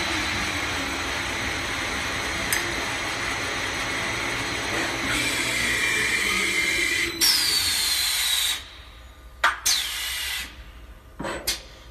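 Tube-end spinning machine for catalytic converter and muffler shells running as its rollers spin-form the cone end of a steel tube: steady machine noise with a short squeal, then a falling whine, before the noise stops abruptly past the middle. A few short hisses of compressed air and clicks follow as the pneumatic tooling releases.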